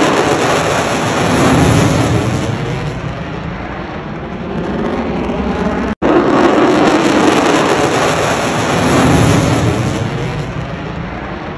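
F-35 Lightning II's single F135 turbofan during a fast airshow pass, a loud jet noise that swells and eases off. It breaks off sharply about halfway and starts again at full strength.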